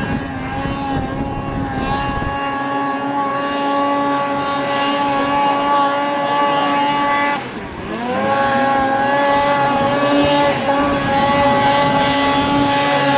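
Snowmobile engine held at high, steady revs while skipping across open river water. About seven and a half seconds in the revs drop briefly and climb back up.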